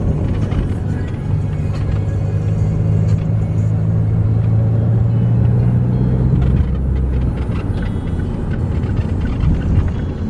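Steady low drone of a moving road vehicle heard from inside it, with a low hum that holds for several seconds in the middle.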